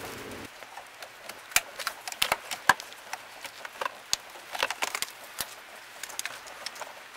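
Irregular sharp clicks and small knocks of plastic wiring connectors being unplugged from a Honda CR-V's steering column under the dash, the loudest a little under three seconds in.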